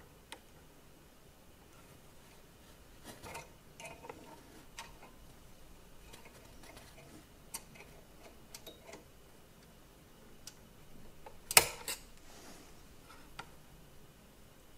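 Small metal clicks and taps from the screw coupling of a brass 1:32 model steam locomotive being hooked back on by hand, with a louder double clack near the end.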